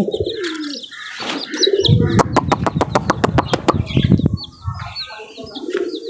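Pigeon wings flapping in a quick run of about a dozen claps, around seven a second, starting about two seconds in. Chicks peep in short high notes and pigeons coo around the flapping.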